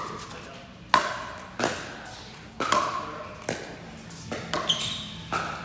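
A pickleball rally: paddles striking the hard plastic ball in a quick exchange, about seven sharp pops each with a brief ringing tail, echoing in the indoor hall.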